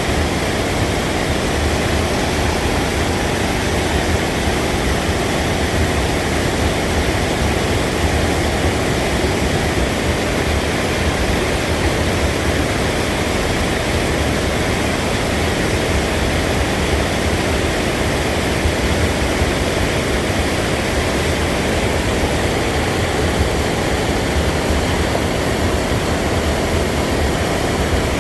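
Steady rush of falling water from a waterfall, loud and unchanging.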